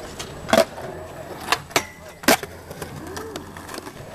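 Skateboard on a concrete skate park: three sharp clacks of the board against the ground about a second apart, the last the loudest, over the low rumble of the wheels rolling.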